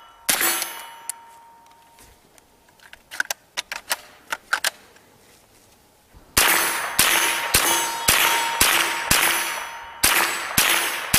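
Beretta ARX 160 .22 LR rifle firing, each shot followed by the ringing clang of a hit steel target. There is one shot right at the start, then a few quiet handling clicks, then a steady string of about nine shots at roughly two a second.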